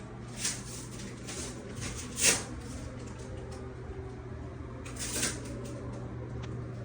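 A steady low hum with three short hissing noises, the loudest about two seconds in.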